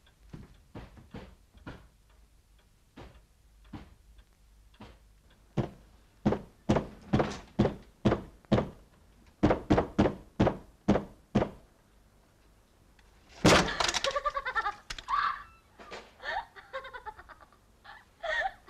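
A run of thuds, faint and scattered at first, then loud and even at about two a second with a short break. Near the end comes a loud burst, followed by a woman's high-pitched laughter.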